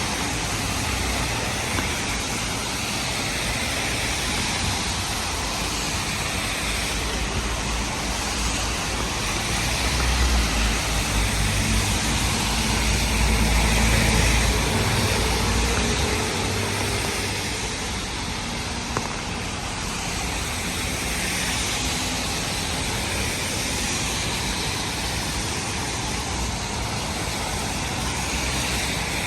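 Rain and city traffic on a wet street: a steady hiss of rain and tyres on wet road, with the low rumble of a passing vehicle swelling and fading about midway.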